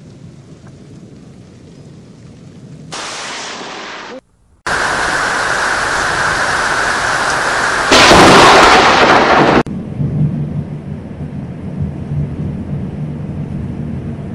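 Thunderstorm with steady heavy rain and a loud, close thunderclap about eight seconds in that lasts about a second and a half, followed by rain with a low rumble.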